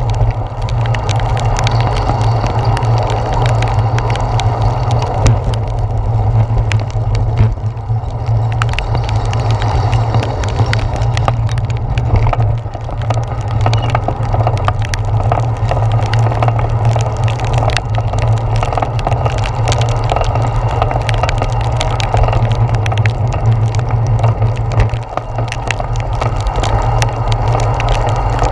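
Rain ticking and pattering on a handlebar-mounted GoPro Hero 4's waterproof housing, many small clicks throughout. Under it runs a steady muffled rumble of a bicycle rolling through the wet.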